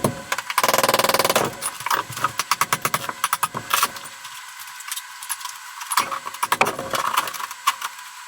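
Hammer driving a chisel into shower tile and cement board, with broken pieces clattering. A fast run of strikes comes about half a second in, followed by scattered knocks that grow sparser.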